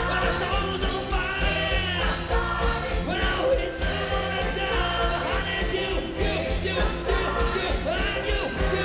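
Live band music with male singers at the microphones, voices over drums and bass keeping a steady beat.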